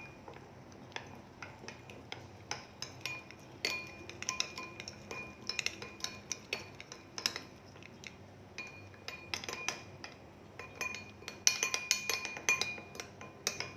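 A spoon stirring a thick spice paste in a bowl, knocking against the bowl again and again with short ringing clinks at an uneven pace; the clinks come faster and louder near the end.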